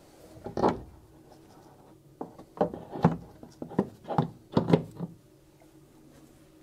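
Plastic coolant tank being pushed and knocked into its mounting bracket beside the radiator: one knock about half a second in, then a quick run of plastic knocks and rubs over the next few seconds as it seats.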